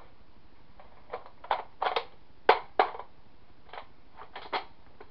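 Plastic Nerf blasters being handled and set down: a run of sharp hard-plastic clacks and knocks. The loudest two come close together midway through.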